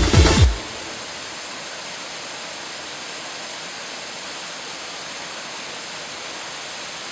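Steady rush of falling water from a waterfall, an even noise with no change in level. The electronic background music cuts off about half a second in.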